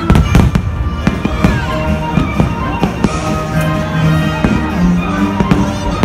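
Aerial fireworks shells bursting overhead in a rapid string of sharp bangs, about a dozen in six seconds, over show music with sustained instrumental notes.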